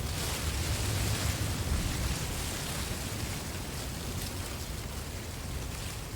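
Wind blowing through reeds, a steady rustling hiss that swells at the start and holds, over a low rumble of wind buffeting the microphone.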